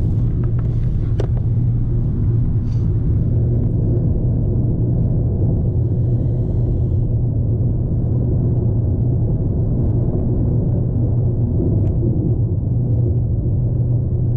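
Steady low drone of a moving vehicle, with engine and road noise running evenly.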